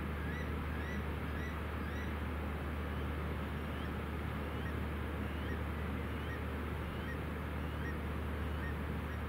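A tour catamaran's engines droning low and steady as it motors slowly past, with a short rising chirp repeating about twice a second over the top.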